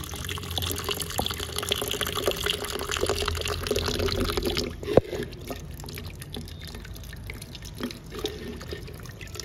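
Flush water pouring from the Yamaha R15's cooling-system drain into a plastic jug and splashing as it fills, during the second drain-out of a radiator flush, with the water now running clean. About halfway through the stream eases off, a single sharp knock follows, and then only a trickle and drips remain.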